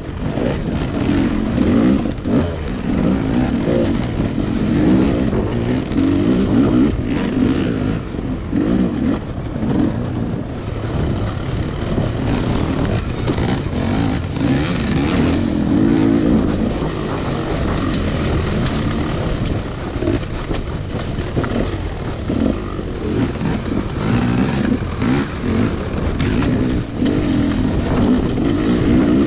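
Two-stroke Rieju MR300 enduro motorcycle engine under way, revving up and falling back repeatedly as the throttle is worked on and off, heard from on board the bike.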